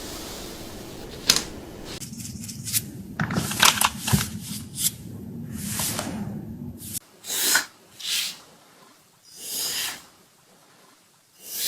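Scissors snipping through long hair, a quick run of sharp cuts during the first seven seconds, followed by several short hissing bursts.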